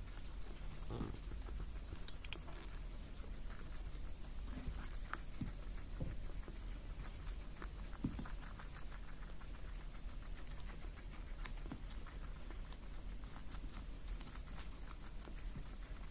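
Two guinea pigs chewing pieces of vegetable: irregular soft crunching clicks, over a faint steady low hum.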